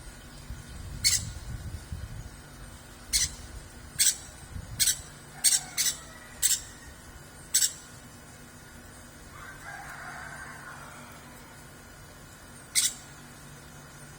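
A rooster crows faintly in the background about ten seconds in. Around it come about nine short, sharp clicks at uneven intervals, most of them in the first eight seconds; these are the loudest sounds.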